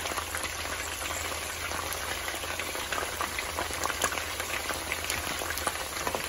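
Chicken pieces frying in oil and their own juices in a pan: a steady sizzle with many small crackling pops.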